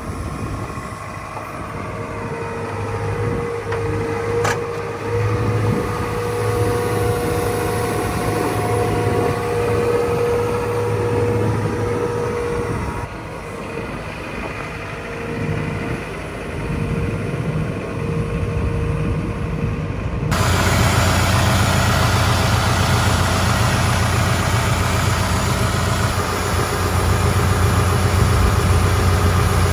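Case CX235 excavator's Isuzu diesel engine running steadily, with a thin whine over it for the first part. About two-thirds of the way through, the sound suddenly gets louder and fuller and stays that way.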